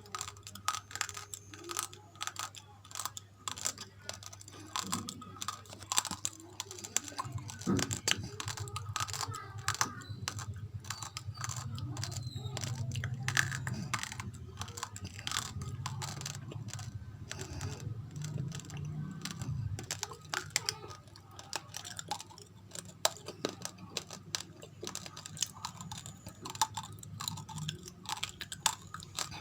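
Close-up crunching and chewing of raw rice grains coated in rice flour: a dense run of small, sharp crackles.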